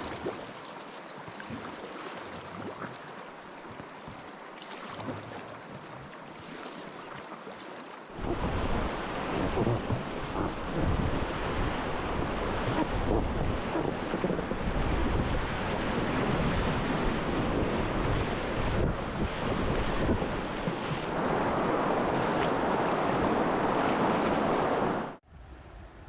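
Fast river water rushing past an inflatable packraft, with wind buffeting the microphone. About a third of the way in it turns much louder and rougher as the raft runs a Class 2 rapid, then cuts off abruptly near the end.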